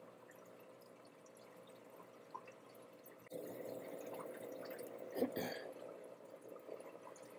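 Water trickling and dripping in a reef aquarium's sump, with hands handling plastic tubing and cables. The handling gets louder about three seconds in, with a sharp bump about five seconds in.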